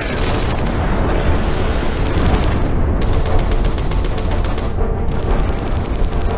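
A loud, rapid rattling clatter over a heavy low rumble, about nine strikes a second, with background music under it.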